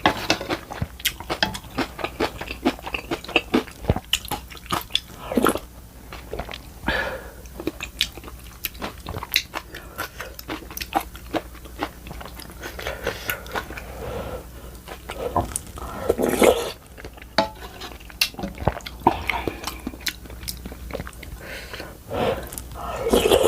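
A person chewing and biting food close to the microphone, with many quick, sharp crunches throughout and two louder, longer bursts of eating noise about sixteen seconds in and near the end.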